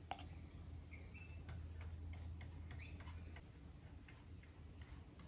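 Faint, scattered light ticks and scratches of a small paintbrush brushing a dope-and-talcum-powder sealer onto balsa wood and dabbing in a plastic cup. A low steady hum sits under it and stops a little after halfway.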